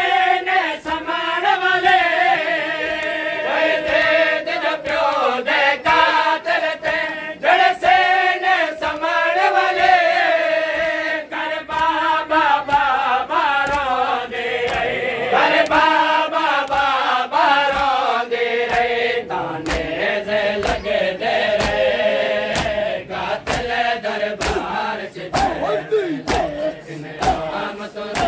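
A group of men chanting a noha, a mourning lament, in unison, with sharp slaps of hands beating on chests (matam) cutting through the singing. The slaps fall more regularly in the second half.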